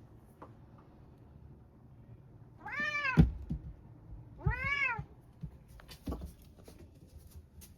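A house cat meowing twice, each meow about half a second long, rising then falling in pitch. A short knock comes right at the end of the first meow.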